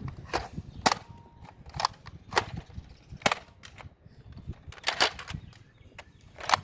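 Nerf foam-dart blasters firing: a run of sharp pops, about eight or nine at uneven intervals, a few fired in quick succession.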